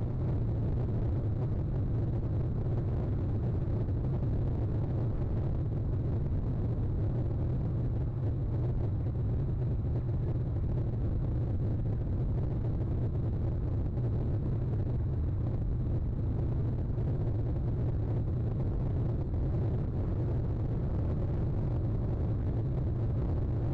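A steady low rumble with no distinct events in it.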